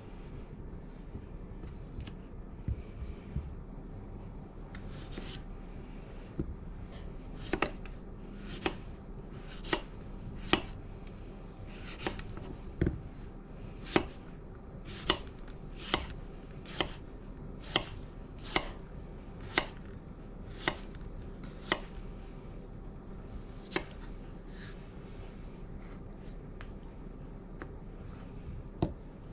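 Chef's knife cutting small potatoes on a wooden cutting board: sharp knocks of the blade striking the board, at first few and light, then a steady run of about one cut a second, thinning out again near the end.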